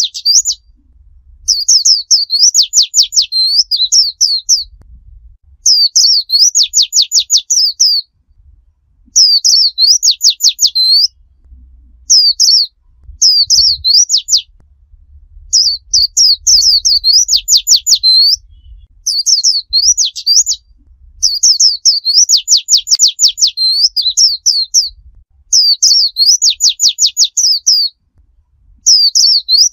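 Pleci (white-eye) singing its 'tembakan' song in clear, high phrases, one every two to three seconds with short pauses between. Each phrase mixes swooping whistled notes with a rapid run of short falling strokes.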